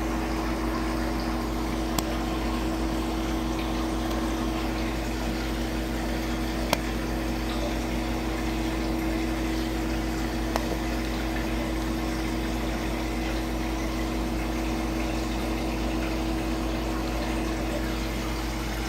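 Aquarium pump running with a steady hum over water noise, broken three times by a short sharp click.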